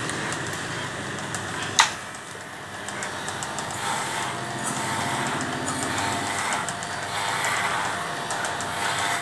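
Electric pet hair clippers buzzing steadily as they shave a St. Bernard's coat, with one sharp click about two seconds in.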